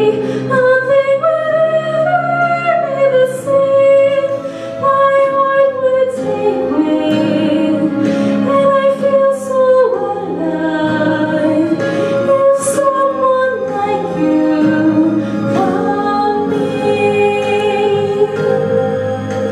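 Solo female voice singing a musical-theatre ballad into a handheld microphone, holding long notes over a sustained instrumental accompaniment.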